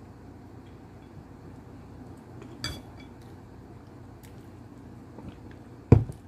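Tableware sounds during eating: a light clink with a short ring a little under halfway through, then a louder, sharper knock near the end as a plastic drink bottle is handled on the table.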